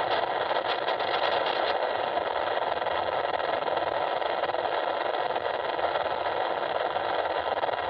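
Steady drone of an RC plane's electric motor and propeller, with wind rush, picked up by the onboard FPV camera's microphone. It is heard through the video receiver's monitor speaker, so it sounds thin and hissy.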